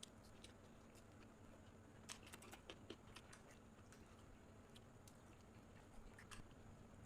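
Faint eating sounds, soft scattered clicks and smacks of someone chewing, in small clusters, over near silence with a low steady hum.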